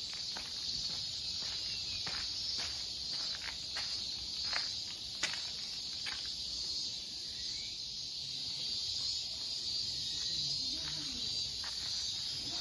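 A steady, high-pitched insect chorus from the surrounding trees, with irregular footsteps on gravel, mostly in the first half.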